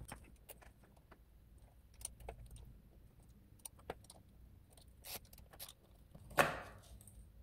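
Small metal clicks and ticks of an Allen key working the chainring bolts on an e-bike's crank, with a louder clatter about six and a half seconds in.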